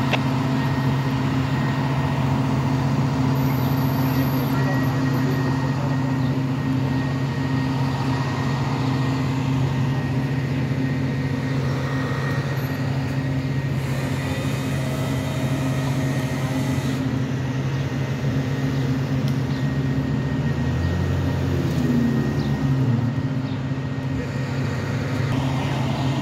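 Heavy diesel engine idling steadily with a low hum. About 21 seconds in the engine note briefly shifts and falls away before settling again.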